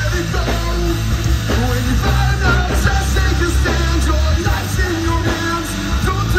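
Rock band playing live at full volume: electric guitars, bass guitar and drums driving a steady beat.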